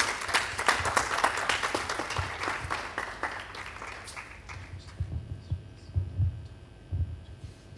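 Audience applauding, a dense patter of many hands that fades out after about four seconds, followed by a few low thumps.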